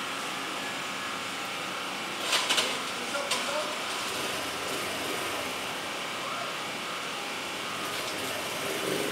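Steady background noise, with a quick cluster of short scratchy sounds about two and a half seconds in and one more shortly after.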